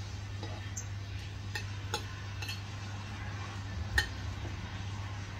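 Metal spoon and fork clinking against a plate several times, the loudest clink about four seconds in, over a steady low hum.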